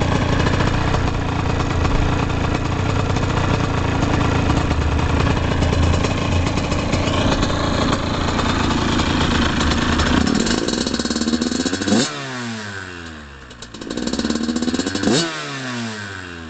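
Yamaha YZ85 two-stroke dirt bike engine running steadily, then revved twice in the last few seconds: each time the pitch climbs sharply to a peak, then falls away as the throttle is released.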